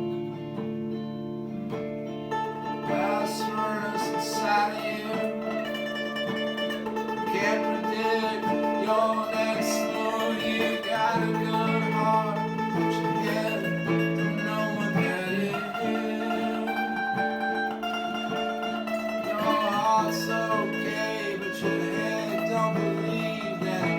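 Music: plucked guitar over steady held chords, with a voice singing in places.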